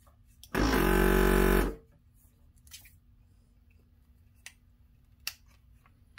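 Hakko FR-410 desoldering station's vacuum pump buzzing for about a second as the desoldering gun's trigger is pulled, then a few light clicks from the gun being handled.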